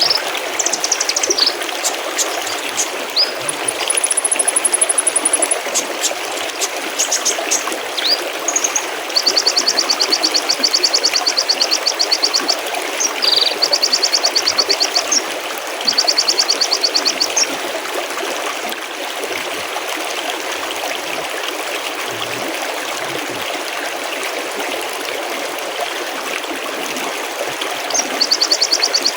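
Mountain stream trickling and burbling steadily, with small birds singing over it: scattered chirps and a high trill in the first few seconds, then several fast runs of rapid repeated high notes. For a stretch in the latter part only the water is heard.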